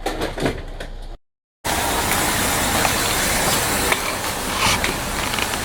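A few light knocks, a cut to silence about a second in, then a steady rushing noise with a few faint clicks.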